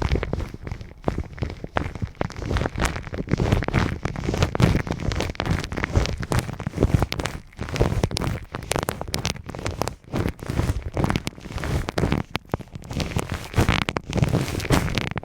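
Hands rubbing and pressing right up against the microphone in an ASMR ear massage: dense crackling and rustling with muffled low thumps and many small clicks, going on throughout.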